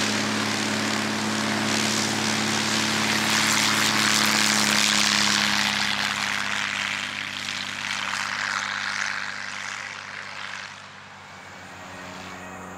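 Single-engine biplane's piston engine and propeller at full takeoff power, a steady, unchanging note. It is loudest as the plane rolls past and lifts off, then fades after about ten seconds as it climbs away.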